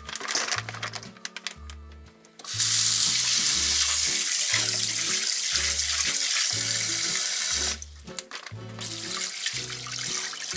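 Kitchen tap running into a steel bowl of sandfish in a stainless steel sink as the fish are rinsed. The water comes on about two and a half seconds in and is loudest for about five seconds, then goes softer while the fish are rubbed under the stream by hand. Background music with a steady beat plays throughout.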